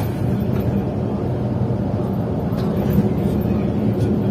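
Coach engine and road noise heard from inside the cab while driving: a steady low drone, with a few faint ticks.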